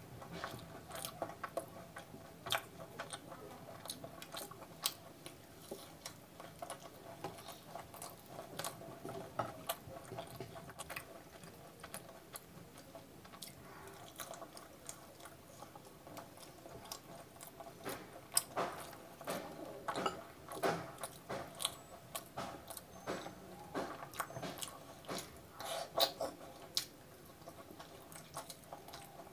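Close-miked eating of deep-fried puri with chole masala: biting and wet chewing with many small crackling clicks, and a run of louder crunches about two-thirds of the way through.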